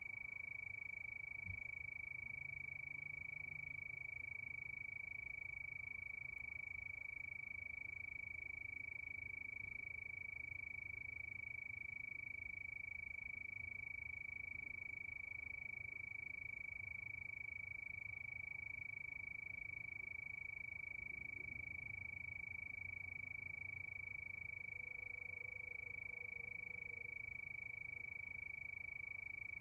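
Chorus of crickets at night: one steady, unbroken high-pitched trill, with a faint low hum beneath.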